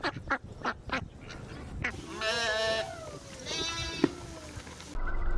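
Duck quacking in a quick series of short calls for about two seconds, followed by two wavering bleats; about five seconds in, the sound cuts to a different recording with a low hum.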